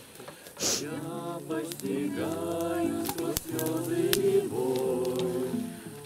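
A small group of men and women singing a song together to an acoustic guitar, starting about a second in with long held notes.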